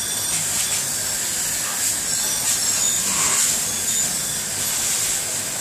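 Commercial pre-rinse spray arm hissing steadily as a jet of water blasts over plates and bowls in a dish rack.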